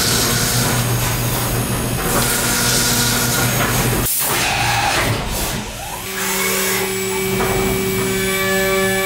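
CNC vertical mill's spindle running and cutting aluminium, with flood coolant spraying. A drill runs with a steady low hum and spray hiss. After a brief break around four to six seconds, another tool runs at a higher spindle speed with a steady whine.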